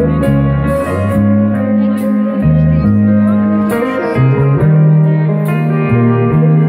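Live rock band playing: guitars and keyboard over a bass line that steps from note to note, with regular cymbal hits.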